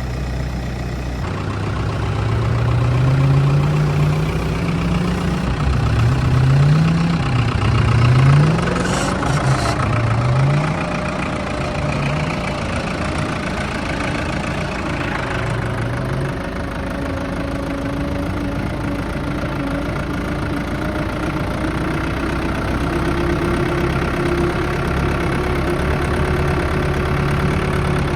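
An engine running, its pitch rising and dropping back several times in the first ten seconds or so, then settling into a steady run.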